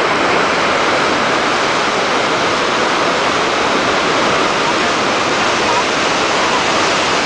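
Steady rush of river water running over rocks and rapids.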